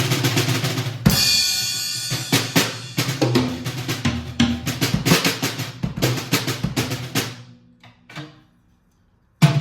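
Drum kit fitted with Remo Silentstroke mesh drumheads and Kasza low-volume practice cymbals being played: a busy pattern of drum and cymbal strokes, with a cymbal crash about a second in that rings on. The playing dies away and stops for about a second, then starts again just before the end.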